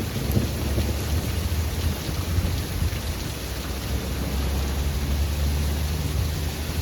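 Heavy thunderstorm rain pouring steadily, with a low rumble underneath that swells about a second in and again in the second half.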